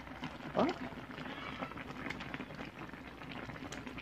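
Kare-kare peanut sauce simmering in a pan, with a soft steady bubbling and small ticks. About half a second in there is one brief rising voice-like sound.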